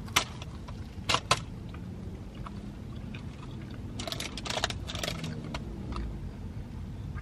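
Biting into and chewing a crusty breakfast biscuit sandwich: sharp crunching crackles about a second in and a cluster of them around four to five seconds in, over a low steady hum.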